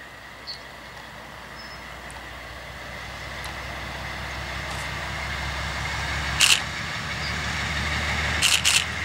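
Class 311D (Siemens ER20) diesel locomotive hauling a train of wagons as it approaches, its engine rumble growing steadily louder. Sharp clicks sound once about six and a half seconds in and twice in quick succession near the end.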